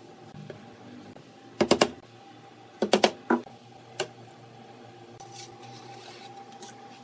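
Sharp knocks of metal on a pine board on the workbench: three quick knocks, then three or four more about a second later, then a single one. A faint steady hum runs underneath.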